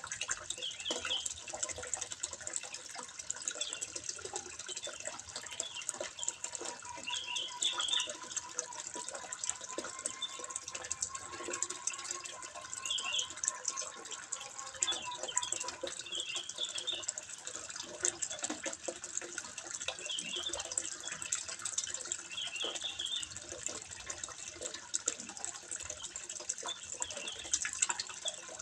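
Water trickling and splashing steadily into a fish pond, a continuous patter.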